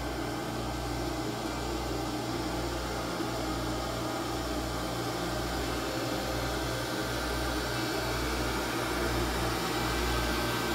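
Steady hum of machinery running in a boat's engine room, with an even hiss and a low throb that beats about once a second.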